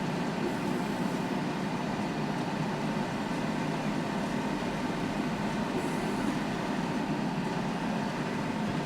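John Deere tractor working a power harrow: a steady, even drone of engine and implement with no distinct knocks.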